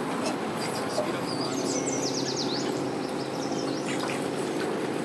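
Sea-Doo personal watercraft engine running at a low idle as it pulls slowly away from a dock, a steady hum with water churning at the stern. A bird chirps high notes over it, with a quick run of chirps about two seconds in.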